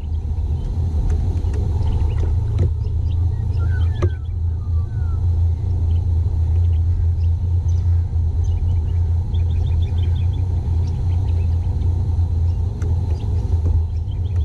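A loud, steady low rumble, with a few faint bird chirps about four seconds in and again near ten seconds, and an occasional light knock.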